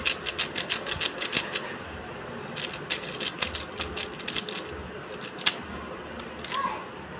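Plastic 3x3 Rubik's cube being turned fast by hand: quick runs of clicks as the layers snap round, several a second, with a short pause about two seconds in and only a few scattered clicks near the end.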